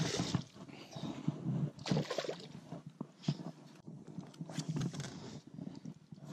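Hooked bass thrashing and splashing at the surface beside the boat as it is landed by hand, a run of irregular splashes with the loudest right at the start.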